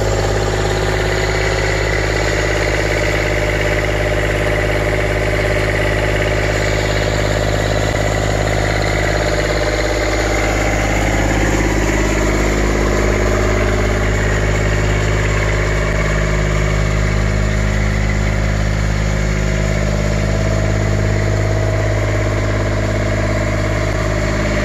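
2007 Skylift Mini-Derrick's engine idling steadily.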